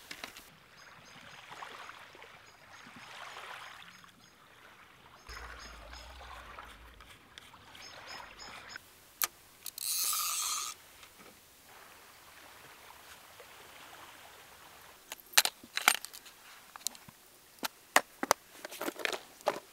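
Fishing tackle being handled: a clear plastic tackle box of lures clicks and rattles in the hands near the end, after softer rustling and a short rasping whirr about halfway through.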